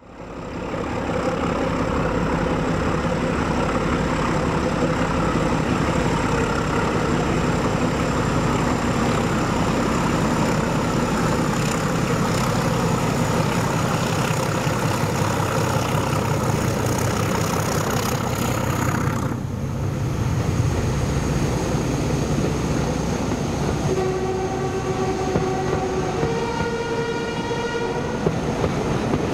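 A diesel locomotive hauling a train runs steadily past, its engine and wheels giving a continuous rumble. About 24 seconds in, its two-tone horn sounds: a lower note for about two seconds, then a higher note for about three.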